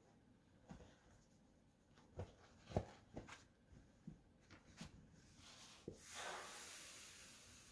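Fabric handling with a few knocks as a jacket hem and a damp cloth are arranged on an ironing board, then about six seconds in a hot steam iron set onto the damp cloth hisses, the hiss fading slowly.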